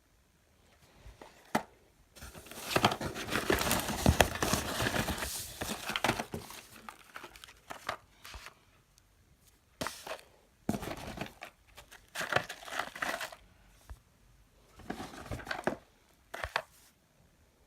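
Packaging crumpled and torn by hand: a long stretch of crinkling and tearing about two seconds in, then shorter bursts of rustling.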